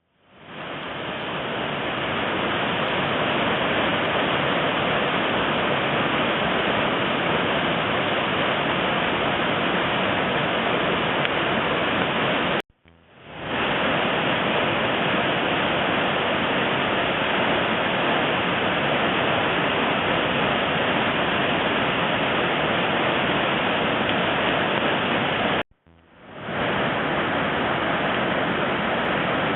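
Nanatsugama Godan Falls, a five-tiered mountain waterfall, rushing with a steady, dense roar of falling water. The sound drops out for a moment twice, a little before halfway and near the end, and fades back in each time.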